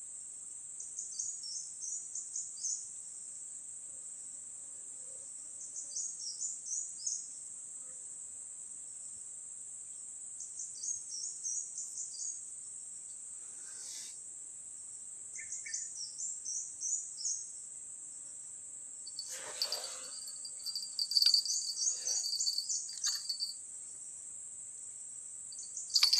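Insects droning steadily at a high pitch, with a bird's short chirping phrases repeating about every four to five seconds. Brief rustling and handling noises come near the middle and in the last third.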